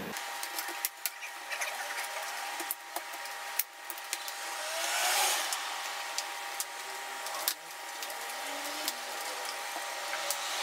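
Scattered small clicks and taps of a MacBook Pro display assembly being handled and jiggled into place, with a brief rustle about halfway through, over a steady faint hum.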